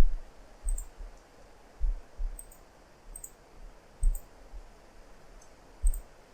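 Computer mouse and keyboard clicks, about six short clicks at uneven intervals, the sharpest near four and six seconds in.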